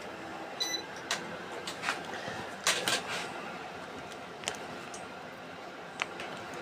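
A sleeping French bulldog breathing noisily: a soft steady rasp with a few short snorts scattered irregularly through it.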